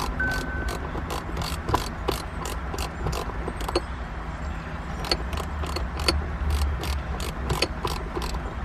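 Hand socket ratchet clicking in a quick, even run of about four to five clicks a second as a bolt is turned.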